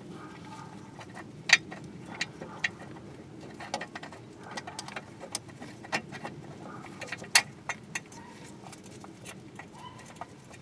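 Scattered light metallic clicks and taps, with two sharper knocks, as a thermostat is worked into its housing in a car's engine bay.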